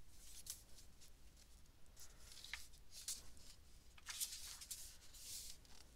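Pages of a hardcover picture book being opened and turned by hand: several faint paper swishes and rustles.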